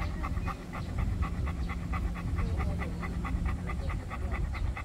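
Golden retriever panting rapidly with its mouth open, an even rhythm of several quick breaths a second.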